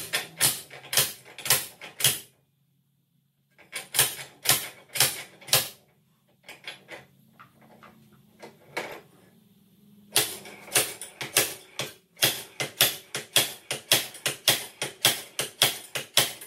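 Slide hammer on a seized rear wheel hub bearing: repeated sharp metal-on-metal clanks as the weight is driven against its stop, in runs of about two to three strikes a second with short pauses between runs. The hub is stuck fast by corrosion in the spindle.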